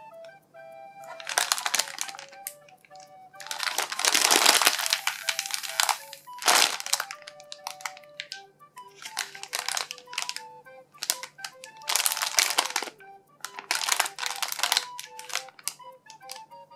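Soft slow-rising foam squishy toy being squeezed and handled, giving crinkly rustling in repeated bursts of one to two and a half seconds, over light background music.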